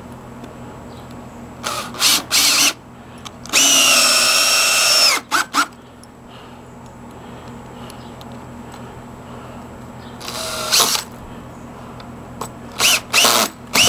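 Power drill driving screws into a deck joist: a few short trigger pulls, then one steady run of about a second and a half, and more short pulls near the end.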